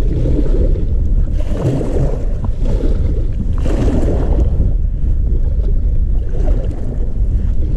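Strong wind buffeting the microphone on open water: a loud, steady low rumble that swells twice in the first half.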